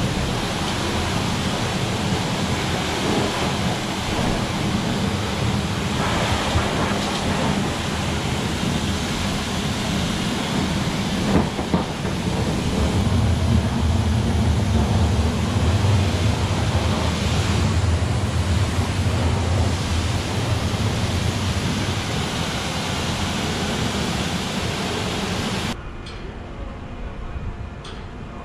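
Pressure-washer wand blasting water into a car's engine bay: a steady hissing spray with a low pump hum under it that grows stronger midway. The spray drops away about two seconds before the end.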